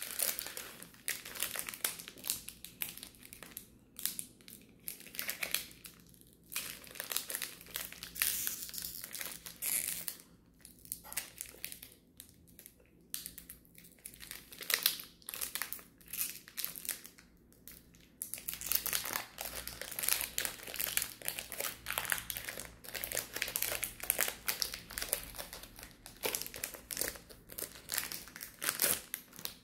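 Foil Pokémon booster pack wrapper crinkling in irregular bursts as it is torn open and handled by hand, with short pauses between.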